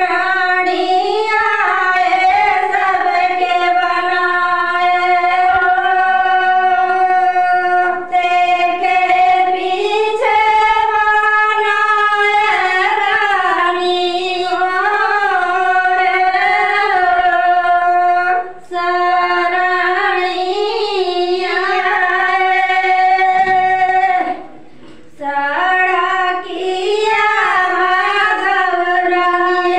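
A woman singing a Shiv bhajan, a Hindu devotional song to Shiva, unaccompanied, in long held notes that waver slightly in pitch, with two short breaks for breath.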